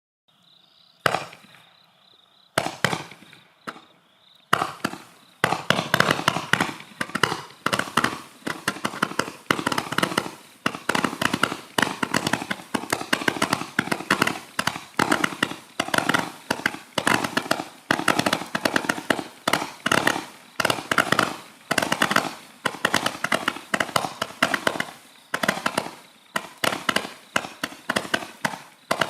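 Roman candle battery firing. A short hiss is followed by two separate shots, and from about four seconds in comes a rapid, continuous barrage of sharp pops, several a second.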